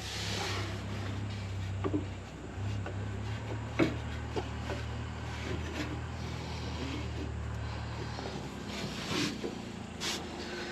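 A steady low engine hum in the background that eases off near the end, with a few light knocks and rubbing as a belt is worked over an engine's pulleys.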